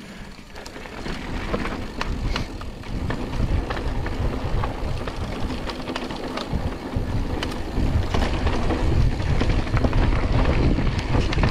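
Mountain bike riding down a rough trail: wind buffeting the microphone with a low rumble, and the bike rattling over the ground with many scattered sharp clicks and knocks, growing louder as it goes.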